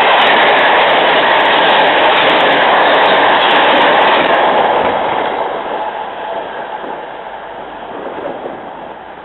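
Amtrak Amfleet passenger coaches passing close at high speed, a loud steady rush of wheels on rail and air. About four and a half seconds in the last car goes by and the sound fades away as the train recedes.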